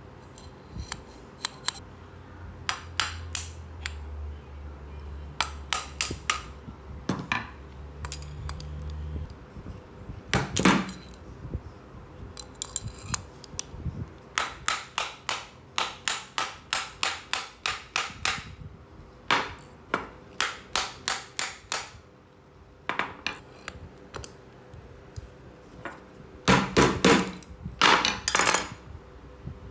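Sharp metallic clicks and knocks from bicycle hub parts being handled and worked with tools, with a run of evenly spaced clicks at about three a second in the middle and a cluster of louder knocks near the end. A low hum runs under the first third and cuts off suddenly.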